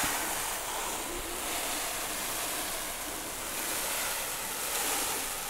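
Clumping bentonite clay cat litter, small granules, poured in a continuous stream from a cardboard box into a glass tray: a steady, even hiss.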